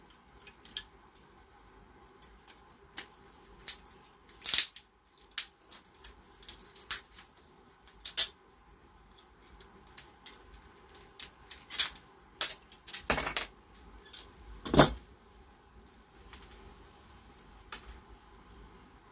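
Red-handled water-pump pliers gripping and cracking small plastic parts apart: a string of irregular sharp clicks and snaps, the loudest about four and a half, thirteen and fifteen seconds in.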